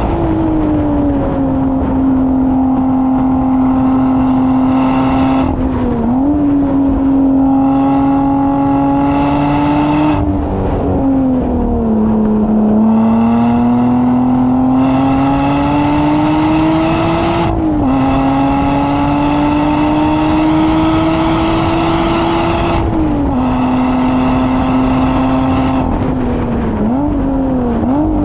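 Engine of a vehicle lapping a race circuit, heard onboard and working hard. Its pitch climbs slowly and drops sharply about every five seconds, as with gear changes and lifts, while a rush of wind noise comes and goes.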